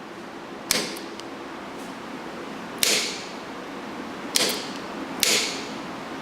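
Four sharp metallic clacks, a second or two apart, from a 1972 Rolls-Royce Silver Shadow electric door lock solenoid and lock linkage being worked on the bench. The plunger is sticking at the top, which is put down to corrosion left in the shaft.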